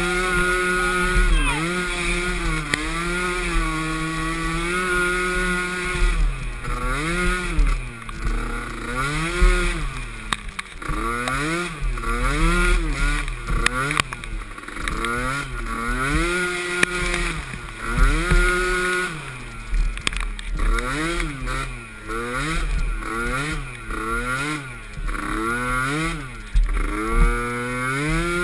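Small youth ATV engine revving up and down repeatedly as the rider throttles on and off through the course, each rise and fall lasting a second or two, with a few short spells held at steady revs.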